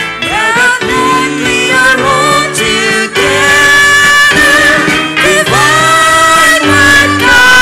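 A woman singing into a microphone with live band accompaniment, a guitar among it, her voice holding long, wavering notes.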